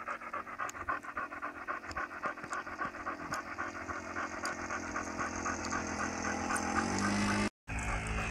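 A dog panting close to the microphone, about three quick breaths a second. Under it, the model plane's engine hums steadily, getting louder and rising in pitch near the end. The sound cuts out for an instant just before the end.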